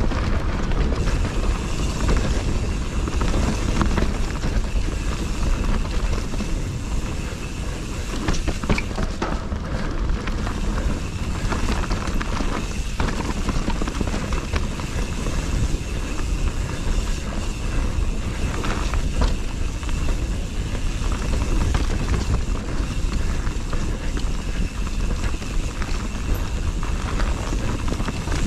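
Steady rumble of tyres on a trail and wind on the microphone while riding a bike.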